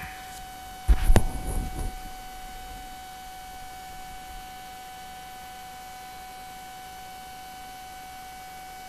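A loud thump with a sharp click about a second in, dying away within a second. A steady electrical hum with a faint high whine runs throughout.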